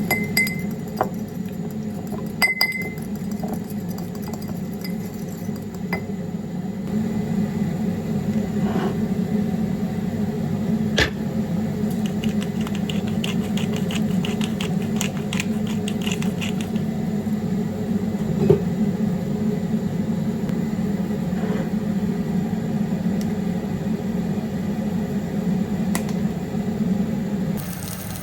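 Kitchen handling sounds over a steady low appliance hum: light clinks and knocks of glass and dishes, with a sharper click about eleven seconds in and a patch of quick light ticking a little later.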